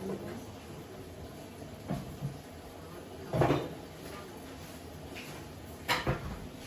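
Kitchen cupboard being opened and closed with items knocked about inside: a few separate knocks and clunks, the loudest about three and a half seconds in and another pair near the end.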